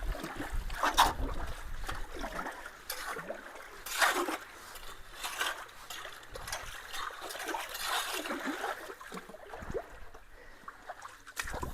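Shallow creek water splashing and trickling around a clogged culvert as leaves and sticks are cleared from it, with uneven louder splashes, the strongest about a second in and about four seconds in.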